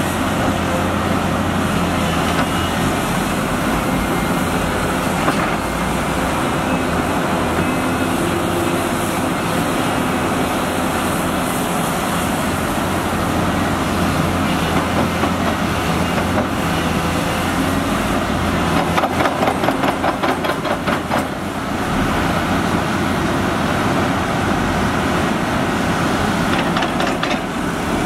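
Large diesel excavator engines running steadily under load while loading a dump truck. Bursts of rapid rattling come about two-thirds of the way through and again near the end.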